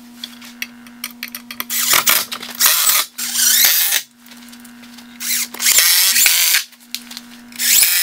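Cordless drill running in several short bursts into a wooden upright, fastening the brace to the barrier's frame. The first burst comes about two seconds in.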